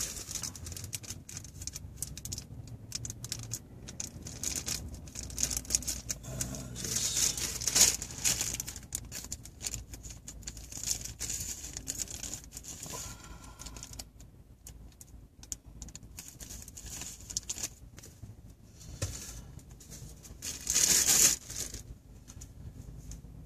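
Irregular rustling, crinkling and clicking as a new long micro USB cable is handled and unwound from its plastic packaging. A louder burst of rustling comes near the end.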